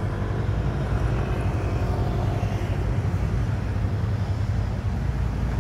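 Road traffic at a city intersection: cars driving past over a steady low rumble, with one engine's hum fading out about halfway through.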